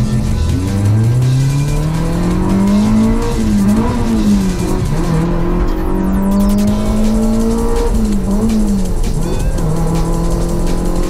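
Honda Civic engine pulling hard on track, its pitch climbing steadily through the revs, then dropping and picking up again twice at gear changes.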